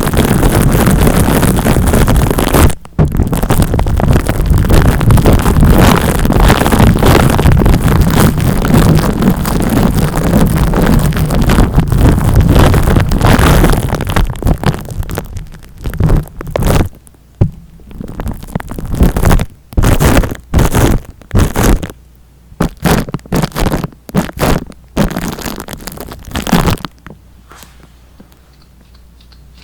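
Close-up ASMR rubbing and scratching noise, as in a mimed scalp massage on the microphone: continuous and loud at first, then broken into separate short strokes about halfway through, stopping a few seconds before the end.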